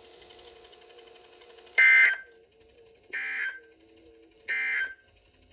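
Emergency Alert System end-of-message signal over weather radio: three short bursts of two-tone digital data about a second and a half apart, the first the loudest, marking the end of the alert. A faint radio background hum runs between the bursts.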